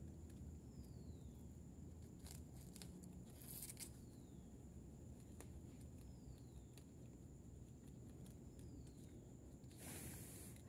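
Faint nibbling and chewing of baby rabbits feeding on banana plant stalks and leaves, with a few soft clicks and a brief rustle about ten seconds in.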